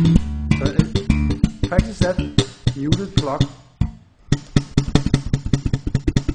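Electric bass guitar played slap style, thumb slaps and finger plucks in a fast run of sharp, percussive notes. It stops briefly just before four seconds in, then goes on as a quick, even stream of strokes.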